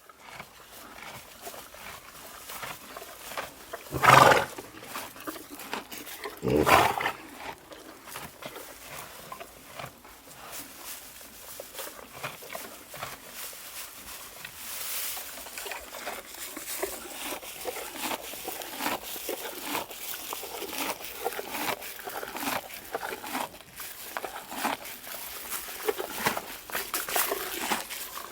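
Farm animals calling: two loud, short calls about four and seven seconds in, followed by a steady busy layer of small clicks and rustling animal sounds.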